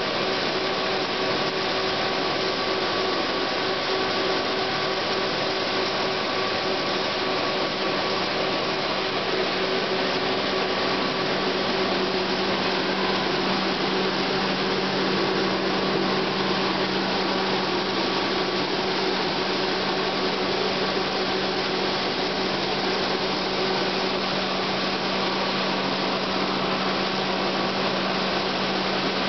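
Rice milling line running steadily: a constant whirring rush of machinery with a steady hum beneath it, unchanging throughout.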